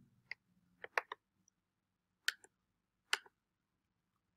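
Computer keyboard keystrokes: about eight sharp, separate key clicks with pauses between them, a few coming in quick pairs or threes.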